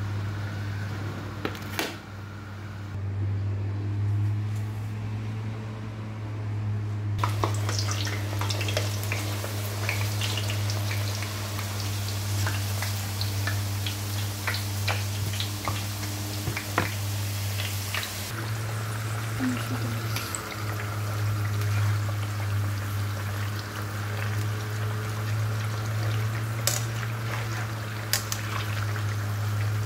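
Thin raw potato slices frying in hot oil in a pan: a steady sizzle full of small crackling pops, which starts about seven seconds in. A steady low hum runs underneath.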